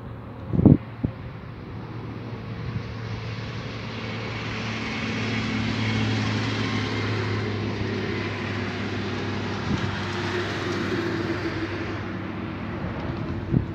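A motor vehicle passing by: its engine hum and rushing tyre noise build over several seconds, peak about six seconds in, then fade away. A short thump comes about a second in.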